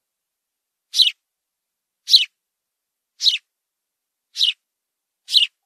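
House sparrow chirping: single short cheep notes repeated about once a second, five in all, each dropping slightly in pitch.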